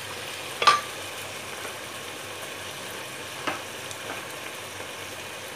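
Chicken pieces with potatoes, carrots and tomatoes sizzling steadily as they fry in a pot for chicken curry. A sharp metal clink comes about a second in and a fainter click a little past halfway.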